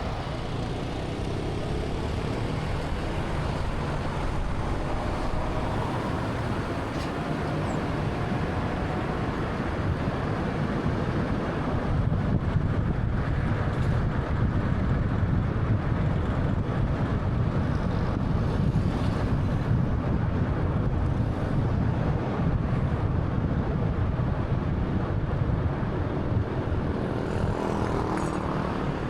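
A 2013 Honda Fit with a 1.3-litre engine driving along, a steady rumble of road and engine noise that gets a little louder about twelve seconds in. A faint rising tone runs through the first few seconds.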